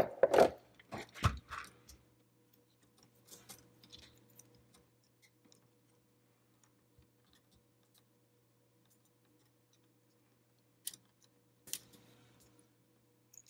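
Small clicks and knocks of plastic and metal as a car radio's eject push-button is worked loose from its housing with fingers and a thin metal tool. There is a cluster of louder knocks at the start, fainter clicks a few seconds in, and two sharp clicks near the end, over a faint steady hum.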